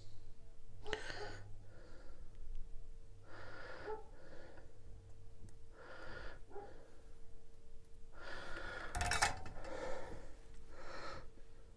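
A person breathing audibly close to the microphone, with soft in-and-out breaths every one to two and a half seconds, over a faint steady hum.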